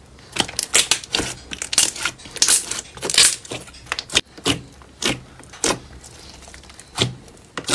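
Slime being squeezed and poked by hand: a quick run of wet, crackly squelches, then single squelches spaced out, roughly one every half second to a second.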